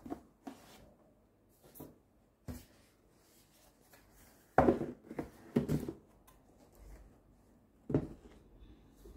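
A cardboard shoebox and sneakers being handled: a few soft knocks and rustles, the loudest cluster about halfway through as the lid goes onto the box, and another knock near the end as the shoes are set down on it.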